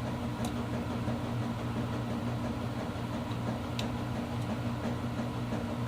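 Steady low machine hum, even and unchanging, with two faint small clicks, one about half a second in and one near four seconds.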